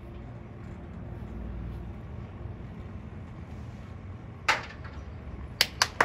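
Outdoor stadium background: a steady low rumble, then a single sharp clap a little before the end, followed by several more scattered hand claps as the crowd begins to applaud.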